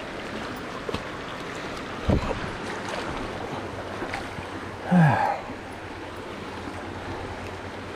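Shallow river rushing steadily over a rocky bed, with a low thump about two seconds in and a brief falling vocal sound about five seconds in.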